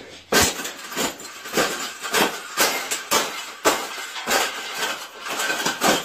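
A round wire birdcage being jumped on and stomped flat: about eleven crunching, rattling impacts of feet on bending metal wire, roughly two a second.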